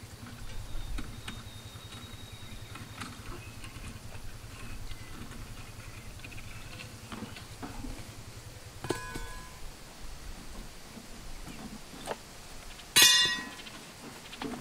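Small clicks and clinks of hands working at a steel mailbox post, with a sharp clink about nine seconds in. A loud, briefly ringing metal clang comes near the end as the steel post and mailbox are pushed into place. A low steady rumble runs underneath and fades out about two-thirds through.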